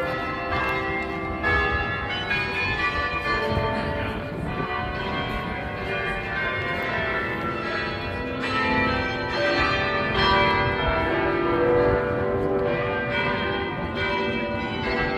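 Duke Chapel's carillon bells playing: many bells struck one after another, their ringing tones overlapping.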